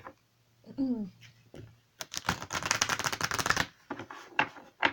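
A deck of oracle cards being shuffled by hand: a rapid run of card flicks lasting about a second and a half, with a few single card taps after it.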